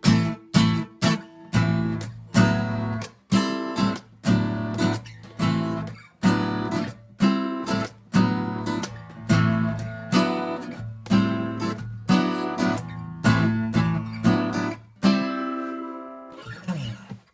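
Acoustic guitar strumming chords in a steady rhythm, then a final chord left to ring and fade near the end.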